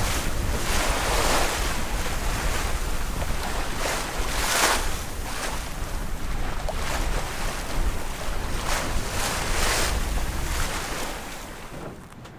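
Strong wind buffeting the microphone over rushing water from a sailboat moving fast in a heavy breeze, with surges of wash every few seconds. The sound drops away sharply near the end.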